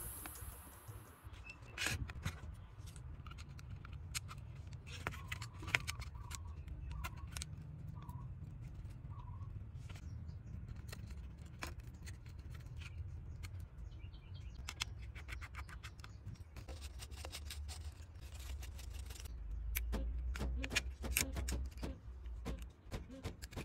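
Small hand tools clicking, tapping and scraping in quick irregular strokes during electronic device repair, over a steady low hum; the clicking grows denser near the end.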